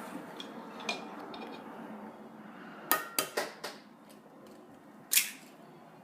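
Eggs being cracked against a mixing bowl: a single light tap about a second in, a quick run of four or five taps and clinks around three seconds, and one louder clink about five seconds in.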